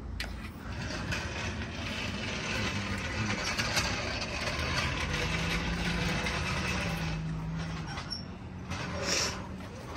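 A motor vehicle passing by: a rushing noise with a low engine hum that swells through the middle and fades toward the end.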